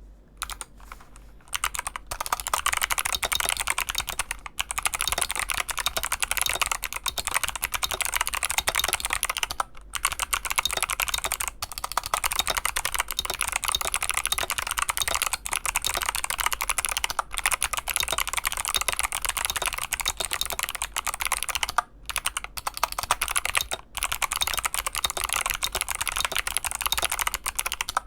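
Fast typing on a Drop CTRL mechanical keyboard with Kailh Box Jade clicky switches and PBT keycaps: a dense stream of crisp key clicks. The typing starts sparse and breaks off briefly a few times.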